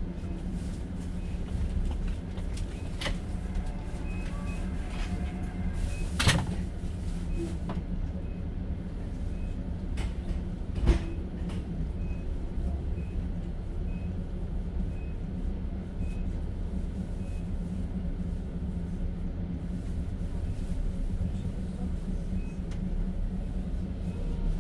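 Interior of a moving Russian platzkart sleeping car: the train's steady low rumble, with a few sharp knocks, the loudest about eleven seconds in.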